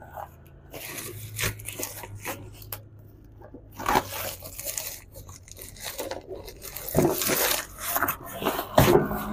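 Black plastic parcel wrapping crinkling and tearing in irregular bursts as it is cut and pulled open with scissors.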